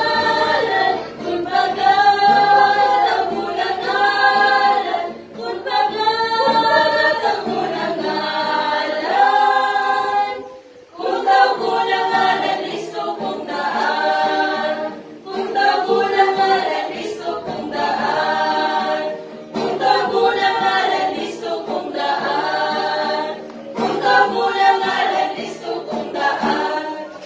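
A small church choir singing a hymn in Cebuano, unaccompanied, in held phrases with brief breath breaks between them, the longest about eleven seconds in.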